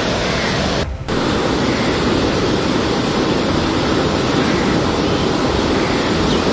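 Floodwater rushing across a road in a strong current, a loud steady rush of water that cuts out for a split second about a second in.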